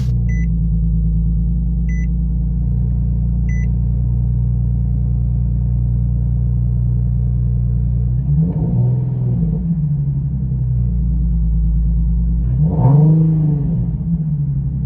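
2019 Nissan 370Z's 3.7-litre V6 idling through a Kinney's Street Demon true dual performance exhaust, blipped twice, about 8 and 13 seconds in, each rev rising and dropping back to idle. Three short high beeps sound in the first few seconds.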